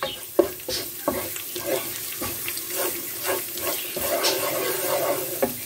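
Wooden spoon stirring and scraping flour and tomato paste as they fry in butter in a nonstick pot: a continuous sizzle with frequent short scrapes of the spoon on the pan.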